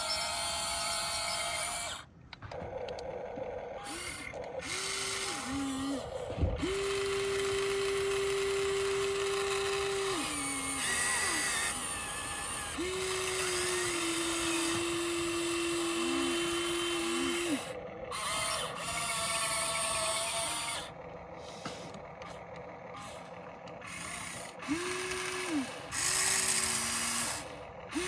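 Small electric motors of a Huina 1594 remote-control excavator whining in stops and starts as it is driven. Some runs last several seconds, and the pitch dips briefly as a run winds down.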